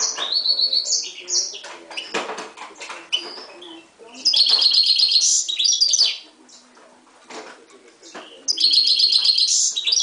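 Himalayan goldfinch × canary mule singing: a run of chirped and trilled song phrases, with two long, loud stretches of rapid trills, one about four seconds in and another near the end.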